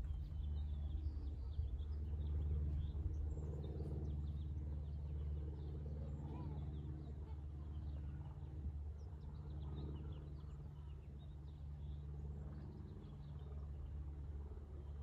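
Steady low drone from an unseen motor or machine, with faint bird chirps scattered over it.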